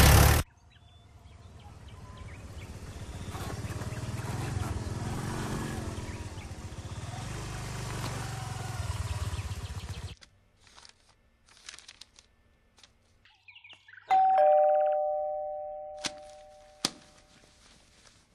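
Two-note doorbell chime, a higher note then a lower one about fourteen seconds in, fading away over about three seconds, followed by two sharp clicks. Before it comes a stretch of softer, steady background sound.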